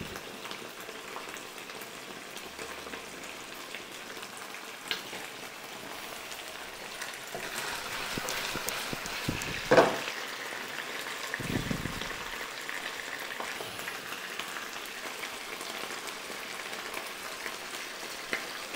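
Chicken pieces frying in a pan with a steady, soft sizzle. A sharp knock comes about ten seconds in, and a duller thud follows a second or so later.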